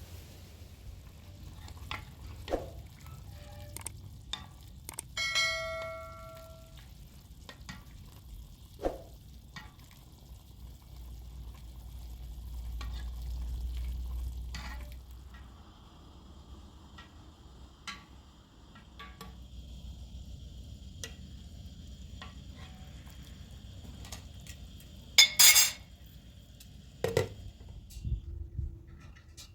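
Scattered clinks and knocks of kitchen utensils and dishes, with one ringing metal clink about five seconds in and a loud clatter near the end.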